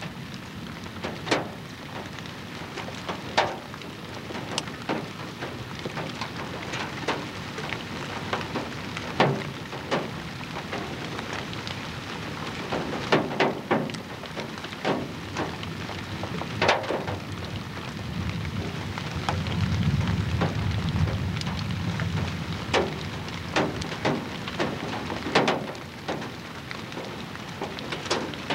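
Wind-driven rain hissing steadily on the camcorder microphone, broken by many sharp crackles and pops. A low rumble swells about twenty seconds in.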